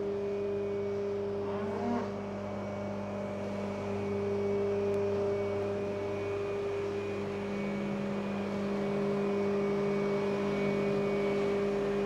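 Bobcat skid-steer loader's diesel engine running at a steady speed as it carries a round hay bale on its spear.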